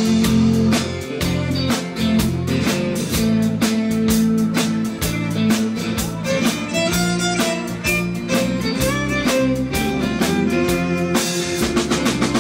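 Country-rock band playing live, an instrumental passage: fiddle over electric and acoustic guitars and a steady drum beat.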